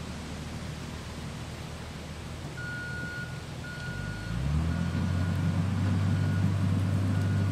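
A vehicle's reversing alarm beeps about once a second. From about four seconds in, a low engine hum comes up, rises briefly in pitch, then runs steadily under the beeps.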